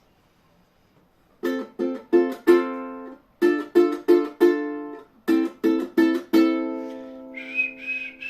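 Strummed chords on a plucked string instrument, in repeated groups of four sharp strums, opening a song's accompaniment. Near the end a person starts whistling a single high, slightly wavering note over it.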